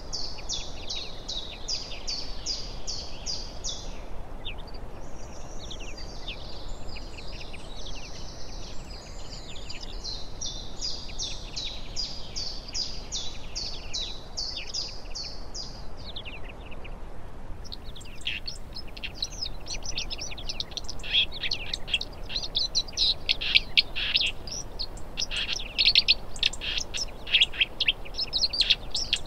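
Small songbirds calling and singing: fast series of high, repeated notes. About two-thirds of the way through, these switch abruptly to a busier, louder twittering of many chirps.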